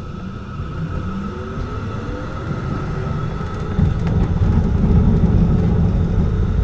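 Standing Frankfurt S-Wagen tram with its electrical equipment giving a steady high whine over a low rumble. A faint tone rises briefly about two seconds in, and the rumble grows louder from about four seconds in.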